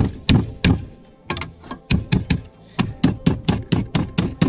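Brass hammer tapping on clamped sheet steel, bending a flange over by hand in place of a brake. A few spaced taps, then a steady rhythm of about four taps a second from about three seconds in.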